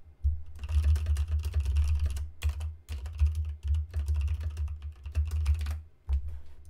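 Typing on a computer keyboard: a quick run of keystrokes with a heavy low thud under each click, stopping shortly before the end.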